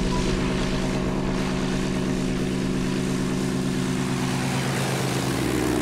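Propeller engine of a Blériot XI replica monoplane running steadily at takeoff power as it lifts off and flies low along the runway. Its pitch dips slightly near the end as it passes by.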